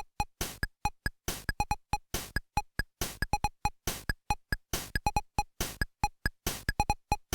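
Electronic background music: a fast, steady beat of short clicky synth blips and longer hiss-like percussion hits.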